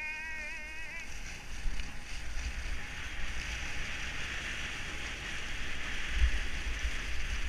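Skis running down a groomed slope: a steady hiss of ski edges sliding on packed snow, with an uneven low rumble of wind buffeting the action-camera microphone. A high wavering tone sounds for about the first second.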